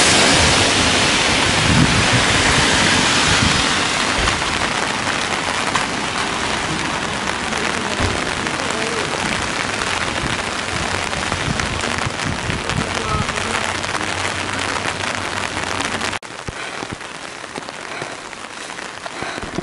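Heavy rain falling steadily on a wet road. At the start the hiss of a vehicle's tyres on the wet road is loudest and fades over the first few seconds. About sixteen seconds in, the sound drops suddenly to a quieter level.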